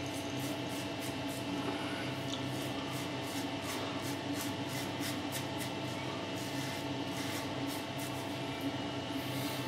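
Fatip Piccolo open-comb safety razor scraping over lathered stubble in short strokes, a few a second, with a steady faint hum underneath.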